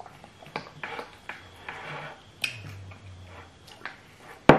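Close-up eating sounds: short wet mouth clicks and chewing, with light taps of small wooden spoons on plates, and one sharp, loud knock near the end.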